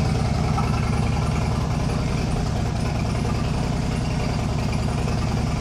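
2009 Harley-Davidson Dyna Super Glide's Twin Cam 96 V-twin engine idling steadily.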